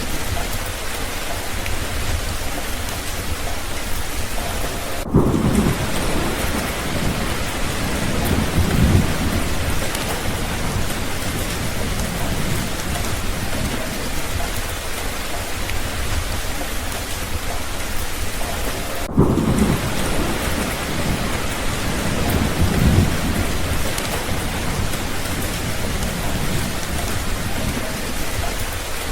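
Steady rain, with low rolls of thunder twice: one starting about five seconds in and another near twenty seconds, each swelling and fading over a few seconds.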